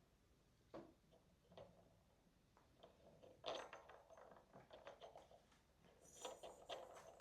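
Faint, scattered taps, clicks and rustles of kittens playing with toys, busier about three and a half seconds in and again near the end.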